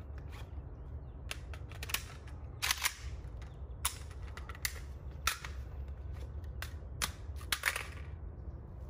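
Irregular clicks and clacks from an AK-pattern rifle with fixed bayonet and sling being swung up and shouldered, its metal parts and sling hardware knocking as it moves. About a dozen short clicks over a steady low rumble.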